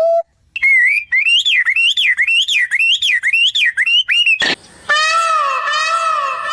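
Animal calls in two parts. First a high warbling whistle that rises and falls about twice a second; then, after an abrupt change a little past the middle, a lower, richer call that swoops up and down over and over.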